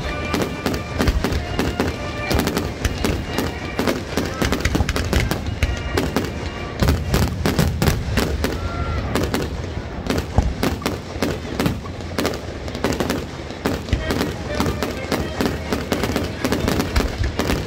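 Fireworks barrage: aerial shells and comets launching and bursting in quick succession, a continuous rapid run of bangs and crackles, many reports a second.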